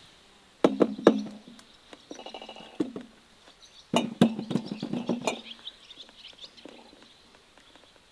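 Plums knocking and clattering in a metal bowl in two bursts, about half a second in and again around four seconds in, with birds chirping.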